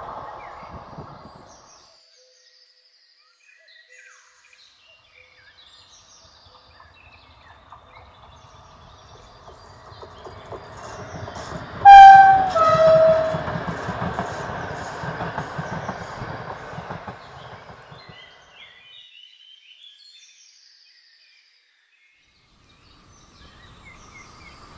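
A Polish EU07-family electric locomotive hauling a TLK passenger train passes, its rumble and wheel noise building and then fading away. About halfway through it gives one two-tone horn blast, a short higher note followed by a longer lower one, which is the loudest sound. A receding train fades at the start, and another approaching train can be heard faintly near the end.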